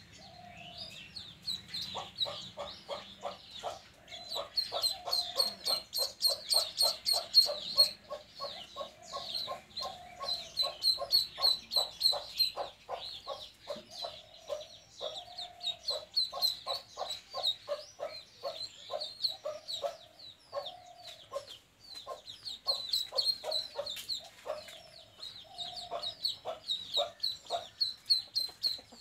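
A duckling peeping shrilly over and over, with lower, fast repeated clucking calls from another bird running alongside.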